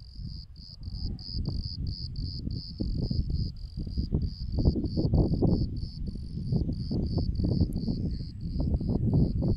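An insect chirping steadily, about three chirps a second, against wind buffeting the microphone in uneven gusts, which is the loudest sound.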